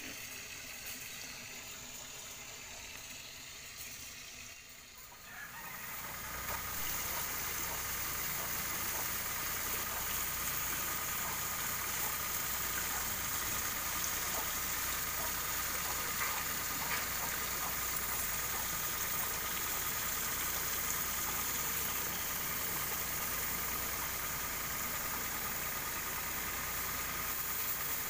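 Kawasaki power sprayer's small petrol engine and pump running steadily, with water hissing from the spray. It steps up louder about five or six seconds in and then holds steady.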